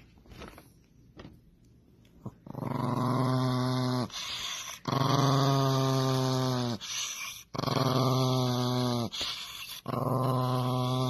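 Small Chihuahua-type dog growling in four long, drawn-out grumbles, each a second or two long and sliding slightly down in pitch, starting about two and a half seconds in.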